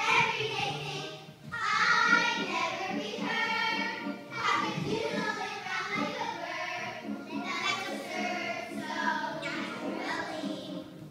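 Children singing a song in chorus over musical accompaniment, in sung phrases with a brief break about a second and a half in.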